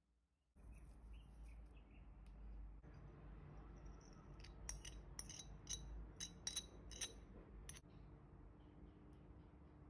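Faint clinking of a metal teaspoon tapping and scraping against a small ceramic dish, a quick run of about ten light clinks in the middle, over a steady low background hum.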